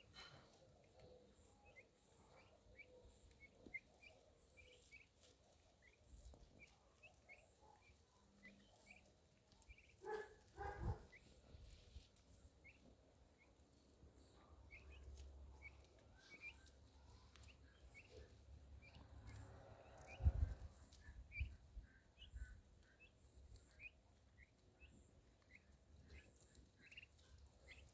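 Faint, repeated short bird chirps, with two dull thumps about ten and twenty seconds in.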